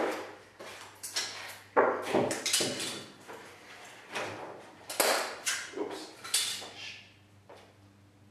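Sharp knocks and clattering from the broken CRT television's plastic casing and metal parts, about a dozen separate hits that stop about seven seconds in.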